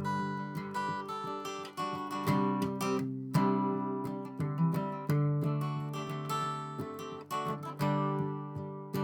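Acoustic guitar strumming chords in the song's instrumental intro, each strum ringing on until the next, about one or two strokes a second.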